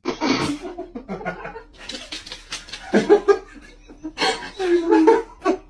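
Laughter in repeated bursts, loudest about three seconds in and again in a long fit near the end.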